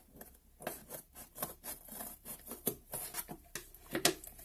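Hands opening a cardboard box: cardboard flaps and their glossy printed coating rubbing, scraping and crackling in quick irregular strokes, with one sharper snap about four seconds in.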